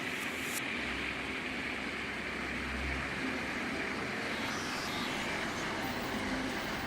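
Floor grinding machine running steadily as it grinds self-levelling compound off a subfloor: an even, unbroken grinding noise.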